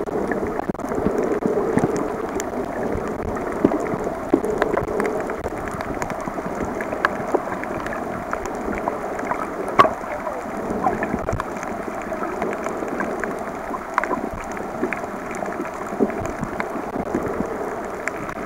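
Underwater ambience over a coral reef, heard through the camera's waterproof housing: a steady, muffled rushing with many scattered sharp clicks and crackles.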